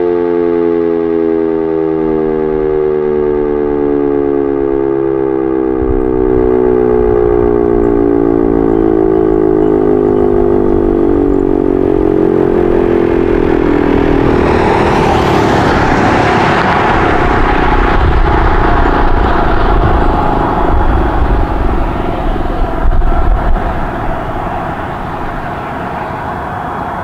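Sentry 10V outdoor warning siren winding down at the end of its full-alert test, its tone sliding steadily lower in pitch and fading over about the first half. A loud rushing noise then swells in and takes over, loudest a few seconds before the end.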